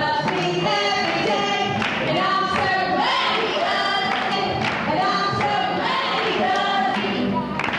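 A group of children singing a song together, holding notes that step from one to the next.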